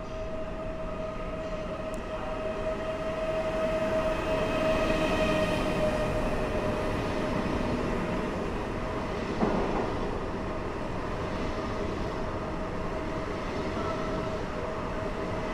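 PESA Dart ED161 electric multiple unit running along the platform, a rumbling pass with a steady high whine. A brief thump about nine and a half seconds in.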